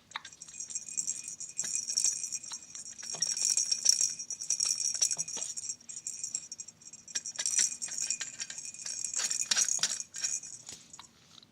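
A small metal bell jingling as it is shaken in irregular bouts, with a steady high ringing and many small clicks. It starts suddenly, eases off briefly about halfway and again near the end, then stops.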